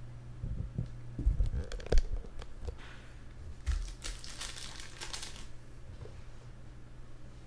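Foil trading-card pack being handled and torn open: a few light knocks in the first two seconds, then crinkling and tearing of the foil wrapper from about four to five and a half seconds in.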